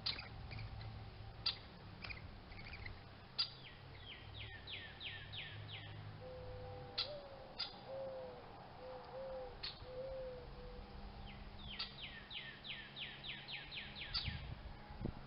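Wild birds calling. Two runs of quick high down-slurred notes, about four a second, come near the start and again near the end, with scattered sharp chips between them. In the middle there is a lower, wavering cooing call of several notes.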